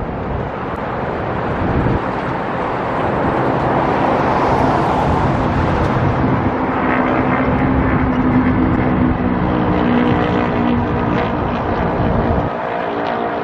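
A motor vehicle's engine passing close by, with heavy wind buffeting the microphone; the deep rumble drops away sharply near the end.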